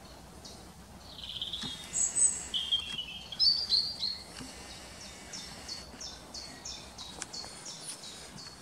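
Wild songbirds singing: a burst of high warbling phrases in the first few seconds, then a run of short, repeated high notes, about two or three a second.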